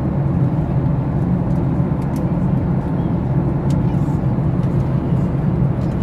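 Airliner cabin noise in flight: a steady low drone of the engines and airflow. A couple of faint clicks sit on top of it.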